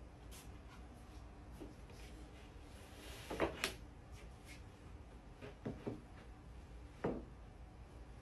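Wooden sleigh parts knocking and scraping as the floor board is worked into its groove: a short scrape and two knocks a little past the middle, two softer knocks, then one more knock near the end.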